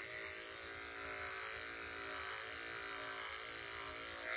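Corded electric dog-grooming clippers running with a steady buzz as they are drawn through a Standard Schnauzer's hard coat on the throat and neck.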